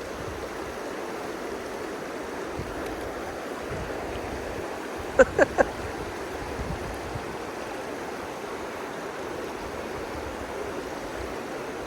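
Shallow river water flowing and rippling steadily, with a few brief pitched sounds about five seconds in.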